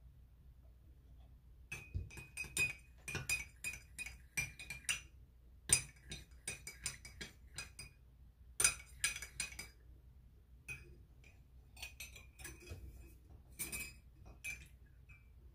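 Teaspoon stirring in a cup, clinking repeatedly against its side, each clink ringing at the same high pitch: honey and lemon juice being mixed into herbal kahwa. The clinks come in quick runs with short pauses, starting about two seconds in and stopping near the end.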